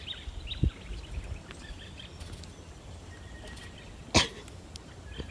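Birds chirping in the background, with a dull low thump about half a second in and one short, loud sneeze-like burst of breath about four seconds in.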